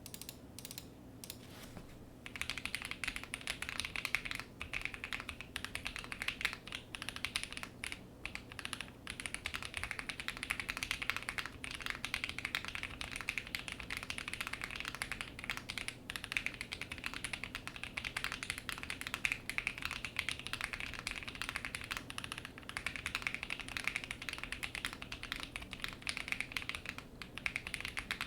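Custom mechanical keyboard with lubed and filmed Holy Boba tactile switches on a polycarbonate plate, in a nylon 3D-printed case with GMK keycaps, being typed on continuously. A few sparse keystrokes at first, then fast, steady typing from about two seconds in.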